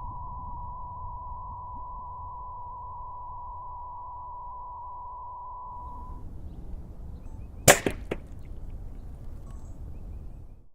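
A steady high tone over a low rumble, cut off above the tone, stops a little past halfway. Soon after, a pellet rifle fires with one sharp loud crack, and a fainter second crack follows about half a second later.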